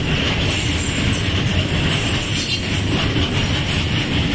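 Empty BCNHL open-top steel freight wagons rolling past, a steady, unbroken running noise of wheels on the rails.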